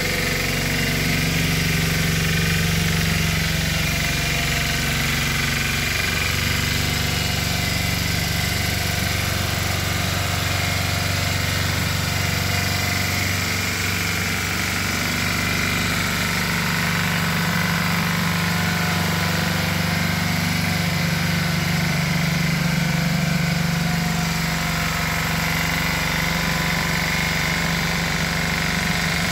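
Valpadana walk-behind tiller with a Lombardini 8 hp, 359 cc engine, running steadily under load as it works the soil.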